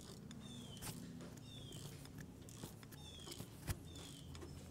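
A ratchet on the crankshaft pulley bolt turning a Honda J-series V6 over by hand: faint, irregular clicks and a few short, high, falling squeaks.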